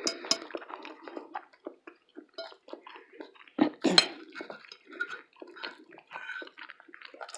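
Fork clinking and scraping on a plate, mixed with close-miked eating and mouth sounds, with a sharper clink about four seconds in.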